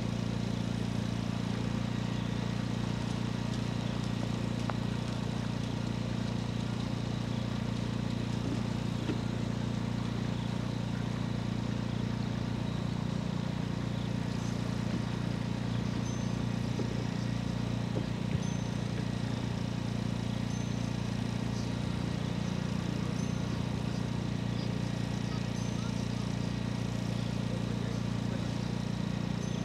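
A steady low hum with a few even, unchanging tones, as from an idling engine, a generator or electrical hum. Faint short high chirps come every second or two in the second half.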